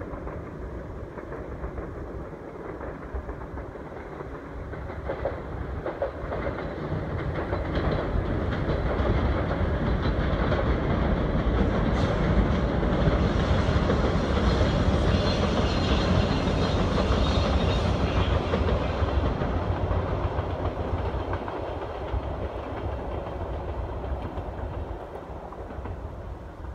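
A VIA Rail passenger train passing over a railway bridge, a steady rumble and rail noise. It builds over the first ten seconds or so, is loudest around the middle, and fades toward the end.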